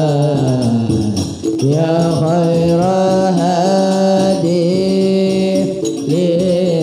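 A man singing an Arabic devotional song (sholawat) in a long, ornamented melody of held notes with winding turns, pausing briefly for breath about a second and a half in.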